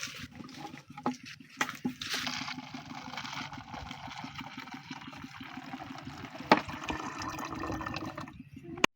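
Water running steadily for several seconds, with a few knocks, the sharpest about six and a half seconds in; the running stops abruptly near the end, followed by a sharp click.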